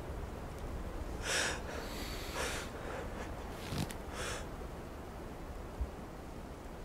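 A man's frightened, ragged breathing through a bloodied nose and mouth: about four short, noisy gasps and sniffs between one and four and a half seconds in, over a faint low rumble.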